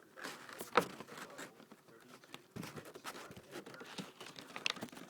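Toy packaging and small playset pieces crinkling and rustling as they are handled, with scattered small clicks and a quieter moment about two seconds in.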